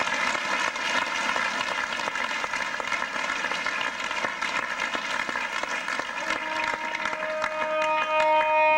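Audience applauding. About six seconds in, the jazz orchestra comes in under the applause with long held notes that grow stronger toward the end.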